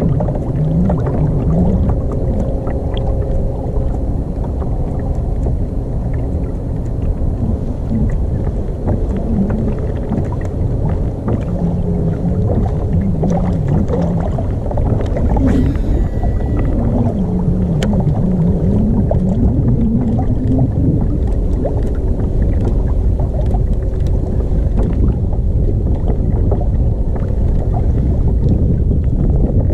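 Wind buffeting the microphone on a fishing kayak out on open water, a loud steady rumble, with a low hum underneath that wavers up and down in pitch.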